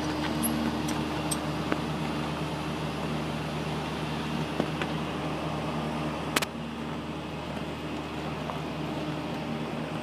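Steady mechanical drone with a constant low hum, from heavy machinery running on the rooftop. A sharp click about six seconds in, after which it is slightly quieter.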